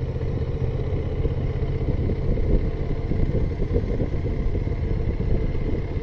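Motorcycle cruising at a steady speed: a constant low rumble of engine and wind noise on the microphone.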